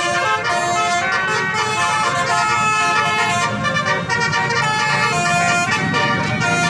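Bus "telolet" multi-tone musical air horn playing a tune as a string of held, reedy notes that change pitch, over a low rumble.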